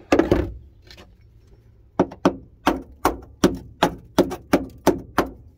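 Hammer tapping the rusty steel rear floor pan of a Ford Cortina Mk4 to test the metal for rust-thinned spots. There are a couple of knocks at the start, then after a short pause about a dozen quick, sharp taps, roughly four a second.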